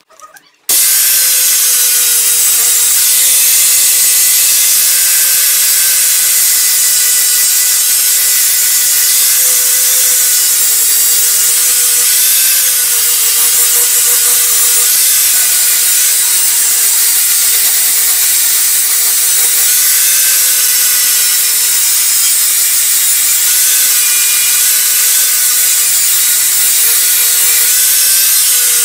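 Electric angle grinder with a flap disc grinding the steel blade of a butcher knife. It starts abruptly under a second in, then runs as a steady loud whine over a hiss, dipping slightly in pitch now and then.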